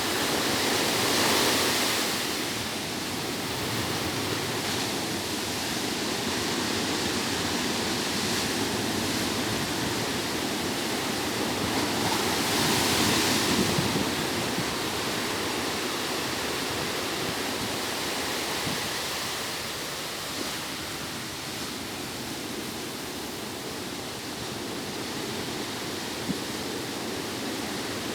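Ocean waves breaking and washing up a beach in a steady surf, with two louder breakers swelling up, about a second in and again around halfway.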